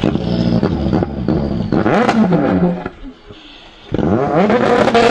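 Citroën Xsara WRC rally car's turbocharged four-cylinder engine revving hard, its pitch swooping up and down with throttle and gear changes. It drops away for about a second past the halfway point, then revs loudly again.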